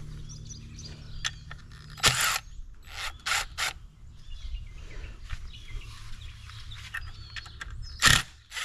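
Cordless drill-driver running in short bursts as it backs screws out of the top of a sand filter's multiport valve. There is one longer burst about two seconds in, three quick ones a second later, and another near the end. Birds chirp faintly.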